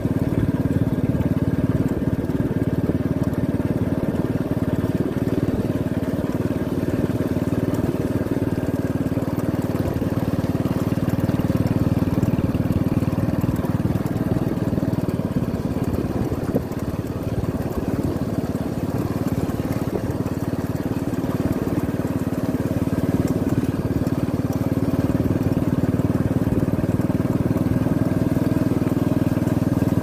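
Motorcycle engine running steadily as the bike rides along, a constant drone that dips briefly about halfway through.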